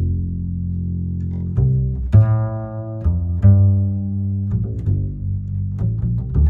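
Instrumental background music of low plucked and bowed strings, a melody of separate notes with sharp attacks.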